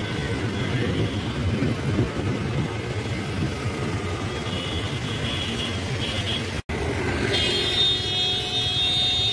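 Busy city street traffic: cars and taxis running past in a steady rumble, with a vehicle horn held for about two seconds near the end.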